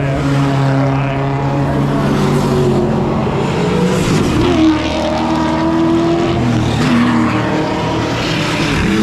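Car engine running hard under racing load, its pitch rising and falling through the revs with a sharp drop about four and a half seconds in.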